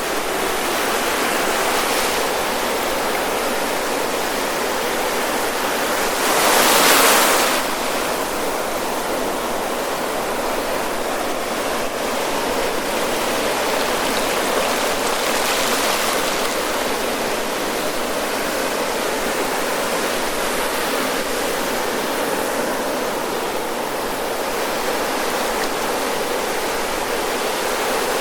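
Ocean surf rolling onto a beach: a continuous wash of breaking waves, with one louder wave crashing about seven seconds in and smaller swells rising and falling.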